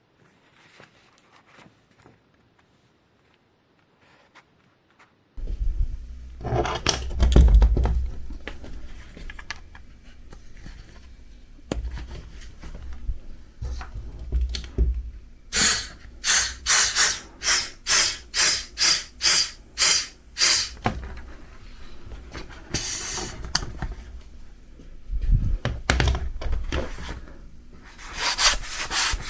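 Handling thumps and rustles, then a hand pump worked in about a dozen even, hissing strokes at roughly two a second, pumping air into a punctured bicycle inner tube to find the leak; more quick strokes near the end.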